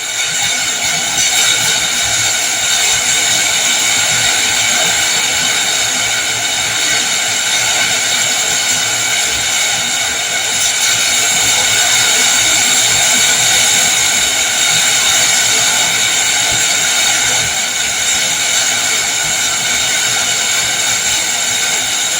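Heavy rain falling steadily in a windstorm, a constant loud hiss that swells a little about halfway through.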